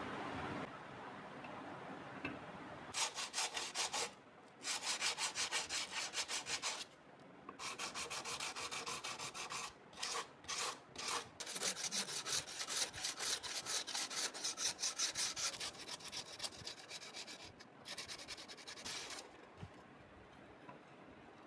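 A steel wrench being sanded by hand with abrasive paper: quick back-and-forth rubbing strokes, about four a second, in several runs with short pauses between them.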